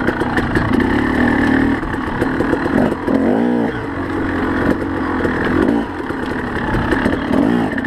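KTM enduro dirt bike engine revving and backing off under hard riding, its pitch rising and falling, with a sharp rev up and down about three and a half seconds in. Knocks and clatter from the bike over rough ground.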